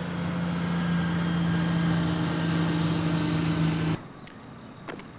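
Motor vehicle engine running with a steady hum, which cuts off abruptly about four seconds in. A much quieter background with a couple of faint clicks follows.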